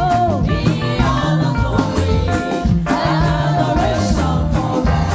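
Live gospel praise music: a band with bass, drums and keyboard playing a steady beat, with singers' voices carrying between the sung lines.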